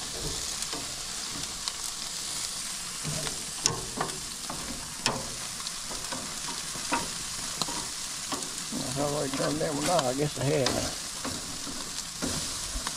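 Pork chops sizzling on a gas grill, a steady hiss, with scattered clicks of metal tongs against the grates as the chops are turned. A short wavering pitched sound lasts about two seconds near the end.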